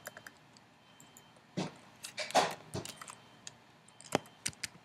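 Computer keyboard keys clicking in a few short runs as an address is typed, with one louder thump about two and a half seconds in.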